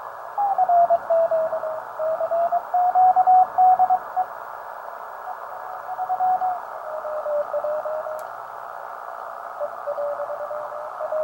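Morse code (CW) heard through a ham radio receiver: a single tone keyed rapidly on and off over a steady band of receiver hiss. The tone's pitch shifts slightly a few times.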